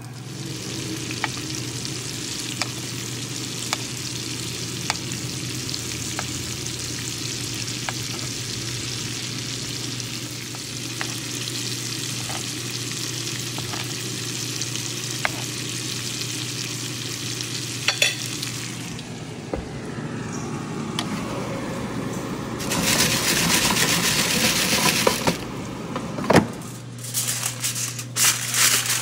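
Beef steaks searing in hot oil in a frying pan: a steady sizzle with small pops at an even pace, swelling louder for a couple of seconds about 23 s in. Near the end, aluminium foil crinkles.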